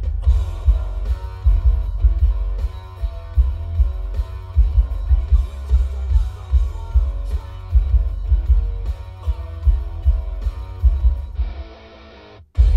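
Guitar-driven song played through a Kicker CompR CWR122 12-inch subwoofer in a ported enclosure tuned to 32 Hz, the bass heavy and pulsing under fainter guitar. Near the end the bass drops out and the music quietens, then after a brief gap the bass comes back in.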